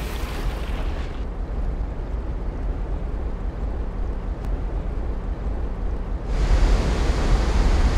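Rushing river water with no music: a dull, muffled rush for about six seconds, then it opens out into a brighter, louder rush of white water.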